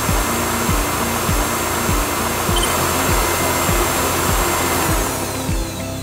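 High-speed hair dryer blowing air, a steady rush with a thin high whine, fading out near the end. It runs over background music with a steady beat.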